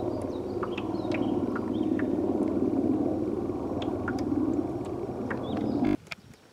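Helicopter flying overhead: a steady low drone, with a few faint bird chirps over it. The drone cuts off suddenly near the end.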